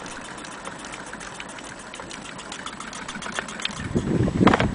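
Antique Willcox & Gibbs chain-stitch sewing machine running, a fast, even ticking of its mechanism. Near the end, loud low bumps and rumble cover it.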